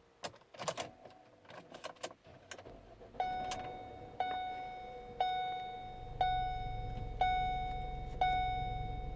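Ford Escape's warning chime dinging six times, about once a second, after a few clicks and a light rattle of keys. A low steady hum joins about six seconds in.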